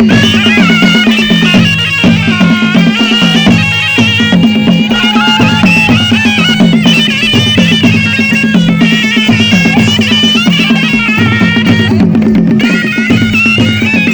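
Nepali panche baja band playing. A shrill shehnai-type reed pipe carries a wavering melody over a steady drone, with drums beating a continuous rhythm.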